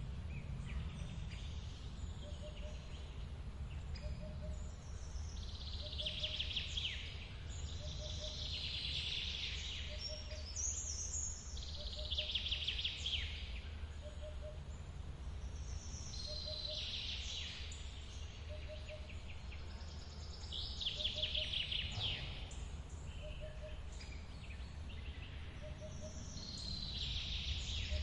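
Steady low rush of a forest waterfall, with songbirds singing bright trilled phrases every few seconds. Beneath them a faint two-note call repeats evenly, a little more than once a second.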